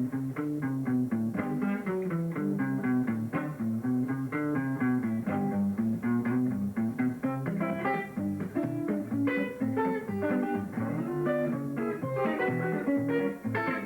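Solo guitar played in the thumbpicking style: a steady thumbed bass line moving under quickly plucked melody notes.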